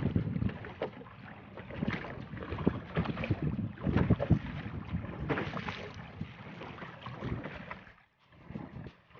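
Wind buffeting the microphone and water slapping against the hull of a small open boat on choppy water, with irregular knocks and splashes. It is loudest at the start and eases off, dropping almost away about eight seconds in.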